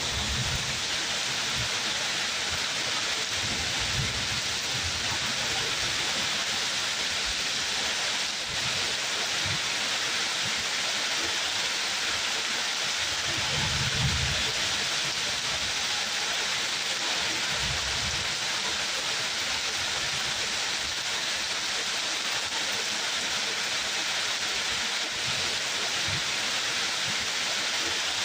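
Steady heavy rainfall, an even hiss without a break, with a few brief low rumbles now and then, the strongest about halfway through.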